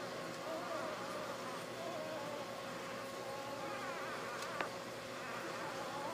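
Newborn basset hound puppies squeaking and whimpering faintly while they nurse, small wavering cries over a steady hum. A single sharp click comes about four and a half seconds in.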